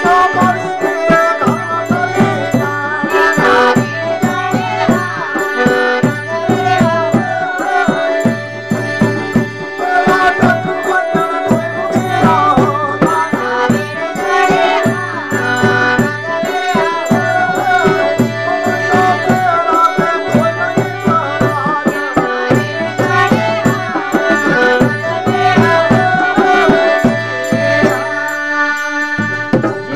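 Instrumental folk music: a harmonium holds drone chords while a dholak barrel drum and small hand cymbals beat a steady rhythm, with a plucked long-necked lute. The drums and cymbals stop shortly before the end.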